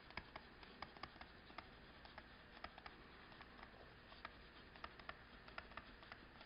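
Faint, irregular clicks and scratches of a stylus handwriting on a tablet screen, a few ticks a second.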